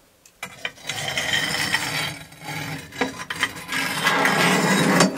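A metal baking tin hooked with a long iron rod and dragged across the hearth of a Russian stove: a rough scraping of metal on the oven floor, with sharp clicks, starting about half a second in and loudest near the end.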